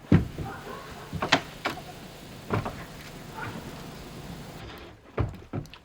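Building paper rustling and scraping as it is put up against a sheathed wall, with a few sharp knocks.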